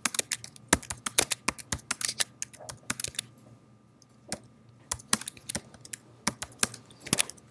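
Computer keyboard keys tapped in quick, uneven runs, with a pause of about a second and a half in the middle.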